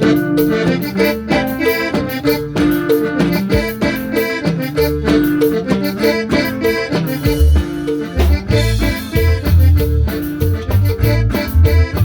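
Accordion playing a Latin-style melody in steady held and repeated notes, with a bass line coming in about seven seconds in.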